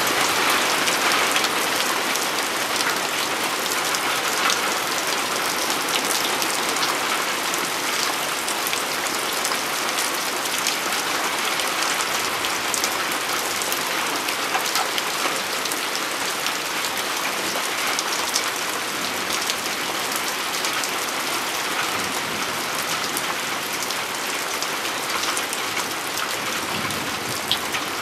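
Thunderstorm rain falling steadily and heavily, an even hiss of rain with many small, sharp drop impacts on the ground, leaves and nearby surfaces.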